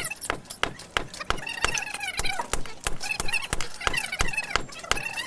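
Hand hammer blows on an anvil, forging a khukuri blade: sharp metallic strikes, about three to five a second at an uneven pace, with a voice behind them.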